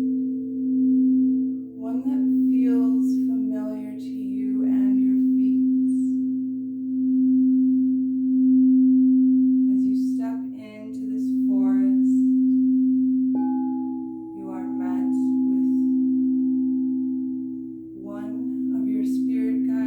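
Singing bowl ringing with a sustained low hum that swells and fades every couple of seconds. About 13 seconds in, a second, higher note comes in suddenly. Brief clusters of light, higher ringing sounds come and go over it.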